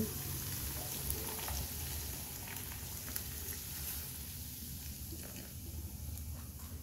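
Chicken sizzling in a hot aluminium pot as Coca-Cola is poured over it: a steady soft hiss with scattered small pops, thinning out a little after a few seconds.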